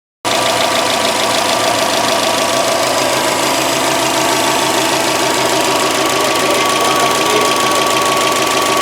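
2014 Subaru WRX's turbocharged 2.5-litre EJ255 flat-four idling, heard close up, with a fine rapid ticking and a steady high whine. This is the car's rough idle under diagnosis.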